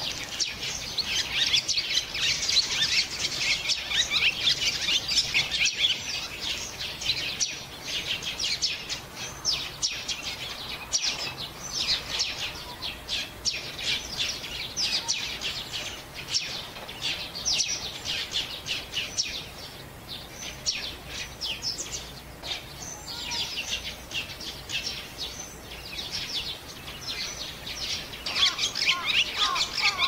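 Birds chirping in a continuous chatter of short, high notes. It is busiest at the start, thins somewhat through the middle and picks up again near the end.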